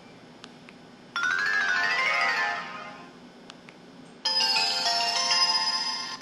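Two short preset chime tones from the MS100 mobile phone's speaker: first a two-second run of bell-like notes that climbs and then falls back, then, after a pause, a bright chime that starts about four seconds in and fades out.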